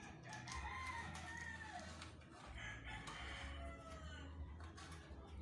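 Faint rooster crowing, several drawn-out calls that overlap, with scattered light clicks.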